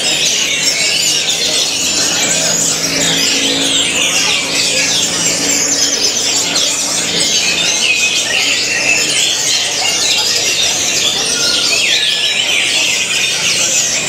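Orange-headed thrushes (anis merah) singing: a fast, unbroken stream of high chirps, trills and whistled notes. A faint low drone runs under the first half.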